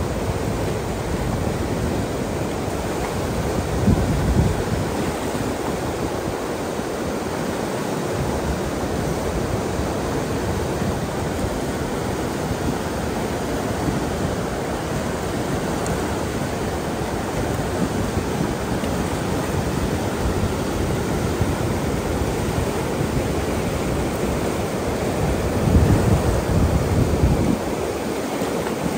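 Fast mountain river rushing steadily over rapids, a continuous whitewater noise. Two brief louder low rumbles stand out, about four seconds in and near the end.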